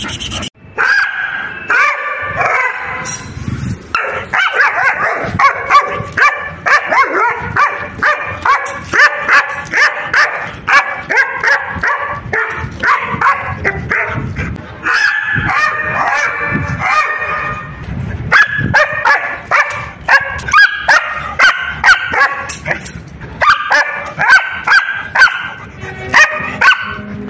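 Young German Shepherd barking and yipping in rapid runs of short, high-pitched calls, several a second, with brief breaks between runs.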